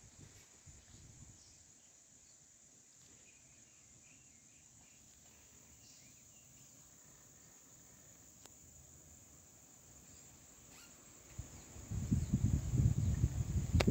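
Insects buzzing steadily in a high, even drone over a faint outdoor background. About twelve seconds in, wind gusts buffet the microphone in loud, uneven low rumbles.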